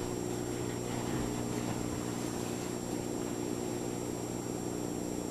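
Steady electrical or mechanical hum with several low tones and a faint high whine, unchanging throughout.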